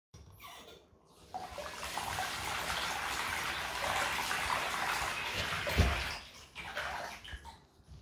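Bathroom mixer tap turned on and water running into the sink basin as a steady hiss for about five seconds, then dying away. A single low thump near the end is the loudest moment, followed by a few light clicks.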